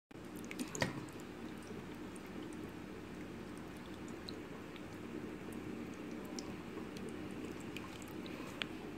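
Hands handling boiled salt mackerel in cold water: soft wet squelches, small splashes and clicks over a steady low background hum, with a sharper click about a second in and another near the end.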